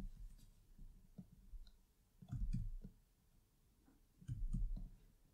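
Faint clicks of a computer mouse and keyboard while text is edited, with two soft low bumps about two and four seconds in.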